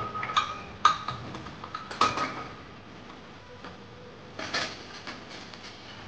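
Stainless steel utensils knocking and clinking against each other as they are set into a dishwasher's wire rack: a few sharp metallic knocks with a brief ring in the first two seconds or so, and another clatter about four and a half seconds in.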